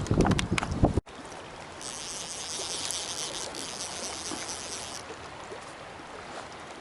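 Flowing river water, a steady rushing hiss, with a higher hiss layered in for a few seconds in the middle. For the first second, loud rumbling wind noise on the microphone covers it and stops abruptly.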